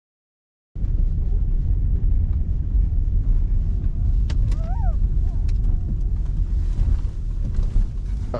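A loud, steady low rumble that begins abruptly under a second in, with a puppy's short whine, rising then falling, about four and a half seconds in.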